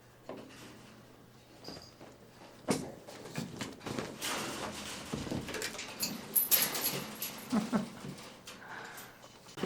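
Two white-faced capuchin monkeys playing rough: scuffling and knocking about, with short squeaky cries, busiest from about three to eight seconds in.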